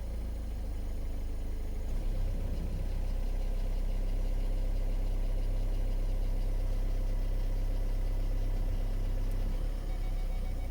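Skoda Octavia 2.0 TDI four-cylinder turbodiesel idling steadily, with a brief louder moment about two seconds in.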